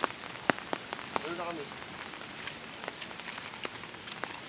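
Steady rain, an even hiss with scattered sharp drop ticks throughout.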